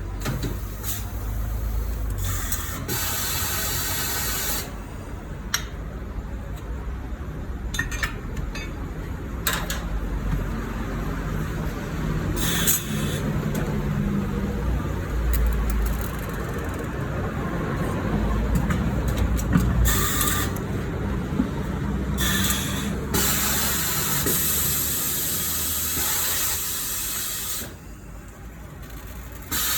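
Bursts of compressed-air hiss from pneumatic tyre-shop tools, starting and stopping several times during a tyre change, the longest lasting about four seconds near the end, with a few sharp clicks and knocks between bursts.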